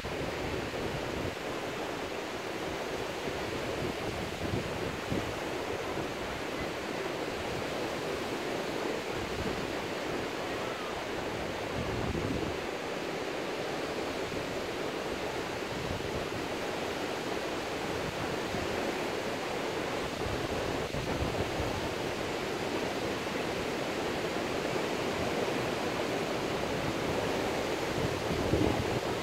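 Ocean surf breaking along the beach, heard as a steady wash of noise, with low wind rumble on the microphone at times.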